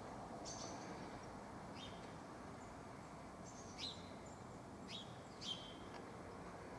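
A handful of short, faint bird chirps, scattered a second or so apart with the clearest near the middle and toward the end, over a steady low outdoor background hiss.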